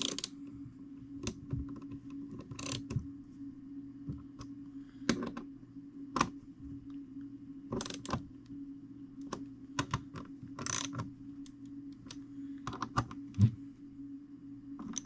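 Irregular metallic clicks and short scrapes as the nuts on top of a fusee clock movement are tightened by hand tool, over a steady low hum.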